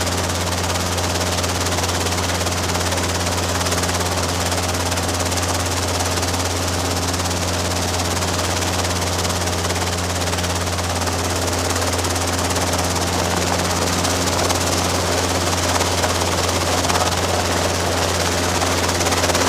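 Robinson R22 helicopter running steadily, its carbureted piston engine and rotor making an even, unbroken drone with a deep steady hum under a wide hiss.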